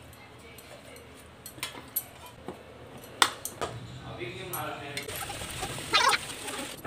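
Steel kitchen utensils clinking and scraping as food is tipped and scraped from plates and bowls: several sharp clinks, the loudest about three seconds in, and a short scraping sound near the end.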